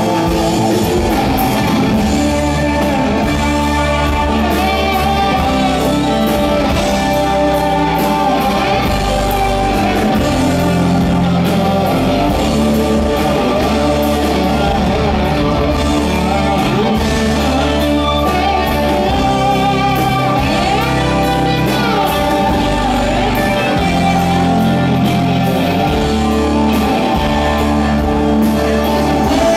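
Live Southern rock band playing loud: overdriven Les Paul-style electric guitars over drums, bass and keyboard, with wavering, bending lead-guitar lines.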